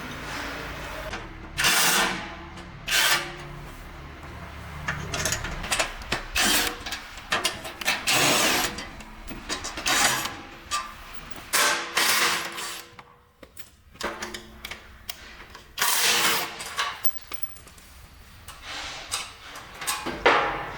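Irregular workshop clatter: tools and parts being handled, with clicks, knocks and short bursts of mechanical noise, and a low hum in the first few seconds.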